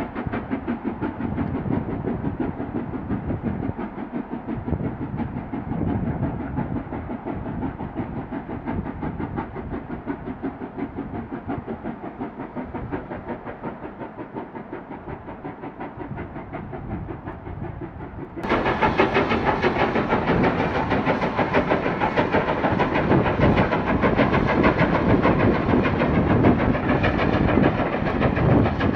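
Steam locomotive hauling a passenger train, with a steady, rapid rhythmic chuffing. About 18 seconds in it becomes suddenly louder and clearer.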